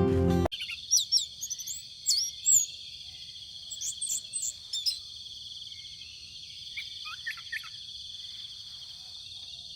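Music cuts off about half a second in, and a small songbird then gives short, sharp chirps and whistled notes in quick runs, with a few lower notes near seven seconds in. Under it runs a steady, high buzzing drone.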